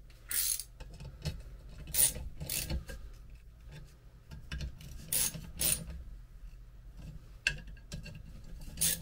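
Socket ratchet wrench clicking in short bursts, about seven times, as the bolts holding a wiper motor to its mounting are run in.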